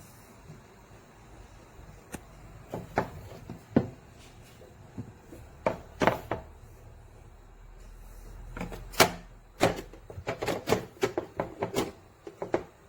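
Hard plastic fridge storage bins and lids being handled, with scattered sharp clicks and knocks. There are a few single knocks in the first half, then a quicker run of clacks near the end.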